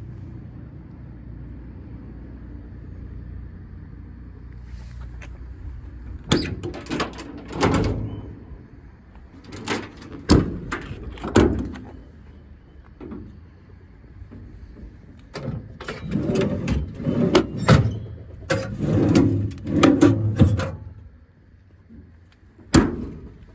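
Compartment doors and fittings on a truck's steel service body being opened and shut: a run of metal clunks, latch clicks and rattles over a steady low hum that stops near the end.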